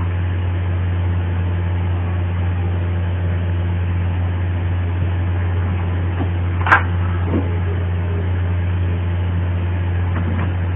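Sewing machine motor running at a steady speed, a low even hum, as a seam is stitched. A single sharp click sounds about two-thirds of the way through.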